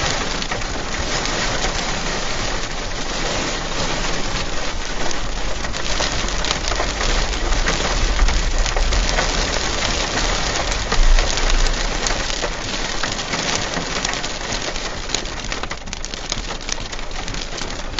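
Windstorm: strong gusts buffeting the microphone, with a low rumble that swells about halfway through over a steady crackling hiss like heavy rain.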